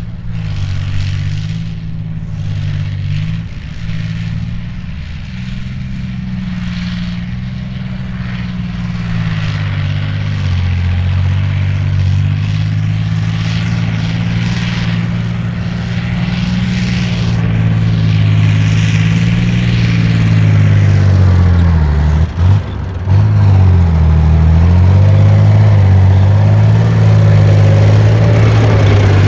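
BMP-1 infantry fighting vehicle's UTD-20 six-cylinder diesel engine running under load as the tracked vehicle drives over sand, growing louder as it comes closer. The engine note dips briefly about three quarters of the way through, then picks back up.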